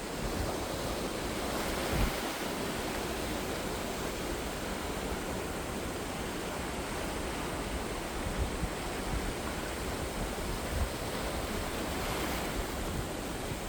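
Sea waves washing onto the shore, a continuous even wash of surf that swells a little about two seconds in and again near the end.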